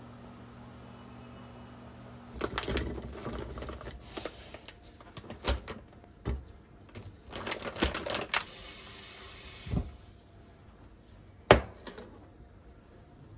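A low steady appliance hum from a running washing machine, then hard rice-cake slices clattering into a glass measuring cup as they are shaken from a plastic bag, with the bag rustling. One sharp click comes near the end.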